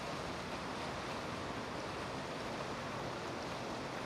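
Steady rushing wash of water churned up by a motor yacht cruising close by, with a low rumble underneath.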